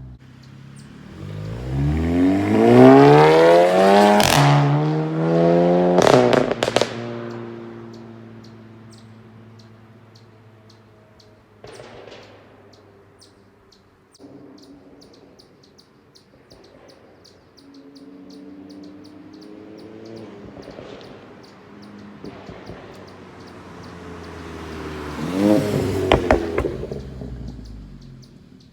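Turbocharged four-cylinder of a 2015 VW Mk7 GTI with a Borla S-Type cat-back exhaust, APR downpipe and APR Stage 2 crackle tune, accelerating hard with revs rising steeply, then a sharp crack at the DSG upshift and a burst of exhaust pops and crackles as the throttle lifts. The revs fall away to a quieter stretch and rise again near the end with more pops.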